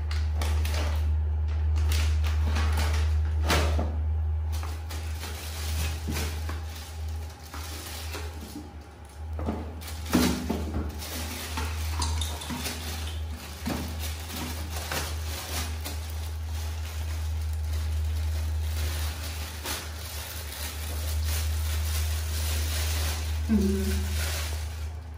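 Scattered clattering and rustling of handled plastic, with a plastic bag crinkling, over a steady low hum.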